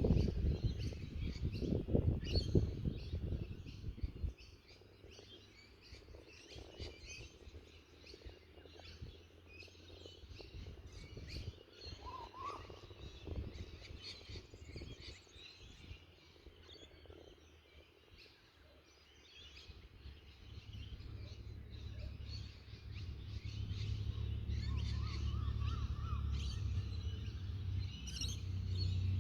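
Many small birds chirping and calling in a steady chorus. Wind buffets the microphone with a low rumble for the first few seconds, drops away, then builds again through the second half.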